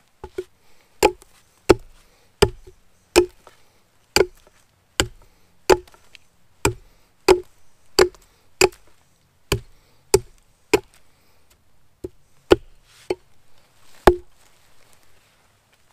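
Hatchet chopping at the end of a wooden pole propped on a log, shaping it to a chamfer: a steady run of about twenty sharp wooden chops, roughly one every two-thirds of a second, with a short pause near the end.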